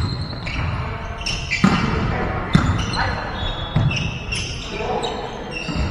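Volleyball rally in a large sports hall: several sharp slaps of hands striking the ball, with trainers squeaking on the court floor and players calling out, all echoing in the hall.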